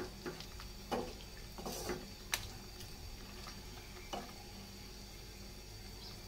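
Wooden spatula stirring and turning chicken pieces in a wet sauce in a nonstick frying pan: a few soft scrapes and knocks, one sharp click about two seconds in, and a last scrape about four seconds in, then stillness.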